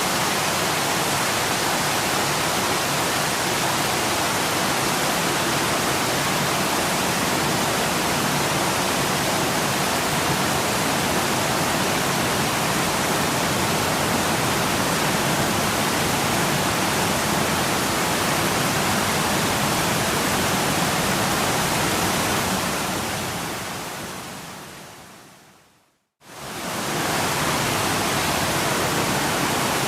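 Steady rushing of a waterfall. About three-quarters of the way through it fades out over a few seconds to a moment of silence, then quickly returns at full level.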